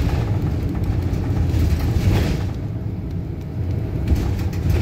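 Steady low vehicle rumble heard from inside a paratransit bus, with a brief swell of rushing noise about two seconds in.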